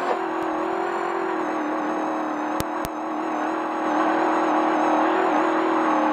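Desert race truck's engine running at a steady, high speed, heard inside the cab over road and wind noise, growing a little louder about two-thirds of the way through. Two sharp clicks come about two and a half seconds in.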